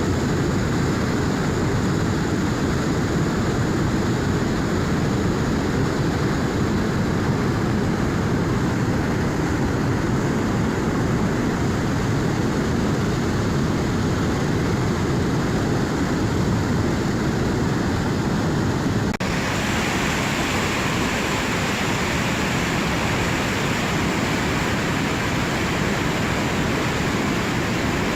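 A river at high flow, with a steady rush of water. About two-thirds of the way through, the sound cuts abruptly to a brighter, hissier stretch of the same rushing water.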